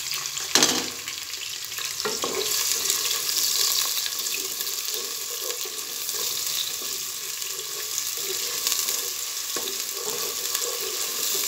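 Sliced onions sizzling in hot oil in a nonstick pot while a wooden spatula stirs them. There is a sharp knock about half a second in and a softer one a couple of seconds in.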